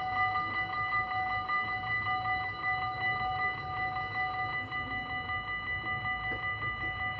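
Dutch automatic level-crossing warning bells ringing continuously with rapid, even strikes, several ringing tones at once, while the crossing barriers lower for an approaching train.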